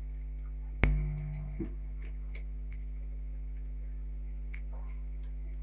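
Cutlery and dishes at a dinner table: one sharp knock about a second in, a smaller click just after, then faint light clinks, over a steady low hum.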